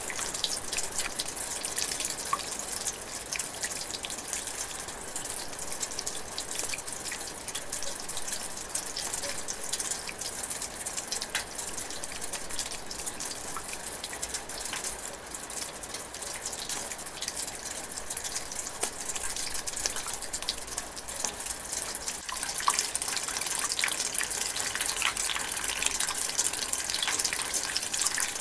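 Light rain drizzling in a forest: a steady hiss dotted with many small drop ticks.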